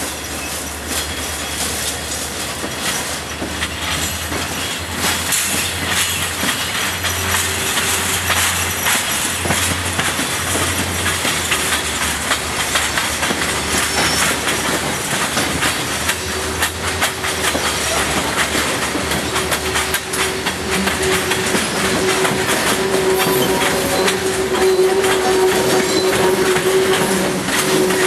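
Freight train of tank cars rolling past, the wheels clacking over the rail joints, growing louder as it goes. A steady wheel squeal comes in after a few seconds and gets stronger near the end.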